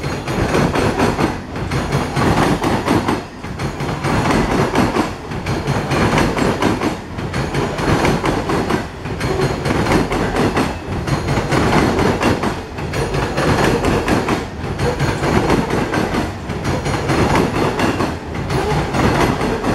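Norfolk Southern coal train's hopper cars rolling past, their steel wheels running on the rails. The noise swells and dips about every two seconds as each car goes by.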